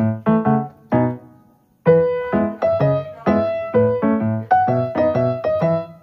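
Background piano music: struck notes that ring and fade. It dies away briefly about a second and a half in, then resumes with a quicker run of notes.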